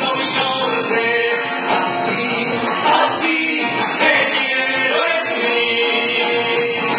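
Live Argentine folk music, a gato: voices singing over acoustic guitar and a hand drum.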